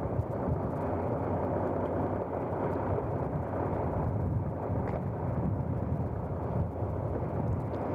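Fire engine pumper running steadily on scene, a continuous engine and pump rumble with no pauses.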